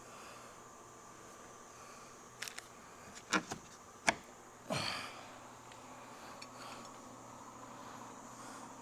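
A few faint clicks and taps of small metal tools being handled, with a short sniff about halfway through.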